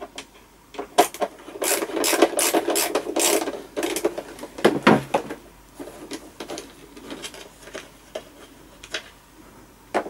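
Screwdriver turning a screw out of a Dyson vacuum cleaner's plastic housing: scraping, clicking turns for a couple of seconds, a sharp knock about five seconds in, then scattered lighter clicks as the parts are handled.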